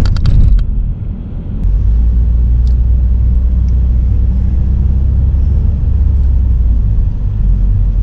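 Car interior: low engine and road rumble that swells about two seconds in and then holds steady as the car drives on. A few sharp clicks come at the very start.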